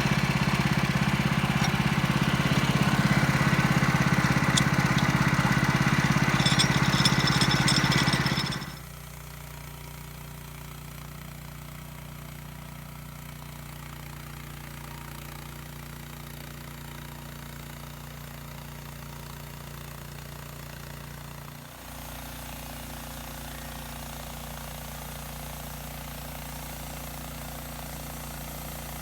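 Sawmill's gas engine running hard as the blade cuts a poplar log. About nine seconds in, the sound drops sharply to a much quieter, steady idle hum.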